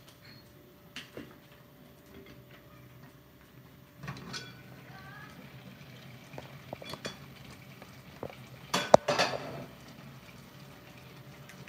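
Dishes and metal utensils clinking and clattering in scattered knocks, some with a short ring, with a brief louder clatter about nine seconds in. A faint steady hum lies underneath.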